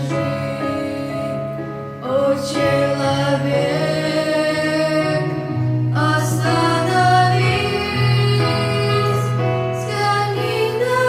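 A slow Christian song: a female voice sings long, held notes over steady sustained accompaniment.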